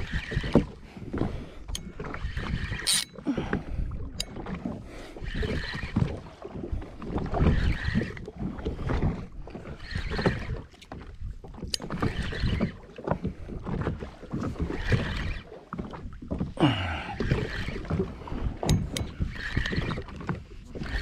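Sea water sloshing and slapping against the hull of a small fishing boat, swelling and fading every couple of seconds.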